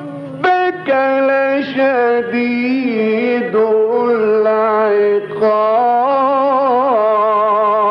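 A man reciting the Quran in the melodic Egyptian mujawwad style, drawing out long ornamented notes in several phrases, with a wavering vibrato and glides between pitches.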